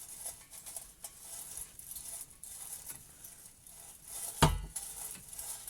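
Exhaust muffler of a Lada Vesta SW Cross moved by hand, giving faint clinks and then one loud metallic knock about four and a half seconds in as it strikes the underbody beam. The muffler hangs askew, so it knocks against the beam.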